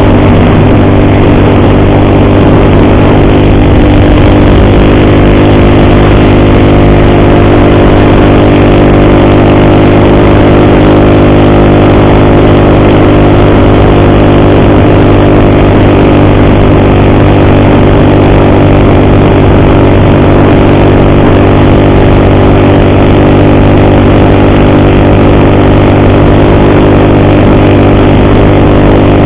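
Motorcycle engine running at a low, steady speed while riding, with the ugly noise the rider blames on the timing chain.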